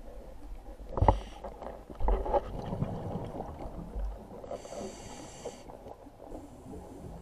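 Scuba diver breathing through a regulator underwater: a rush of exhaled bubbles from about two to four seconds in, then a hissing inhalation about a second long, and a fainter second hiss near the end. A sharp knock about a second in is the loudest moment.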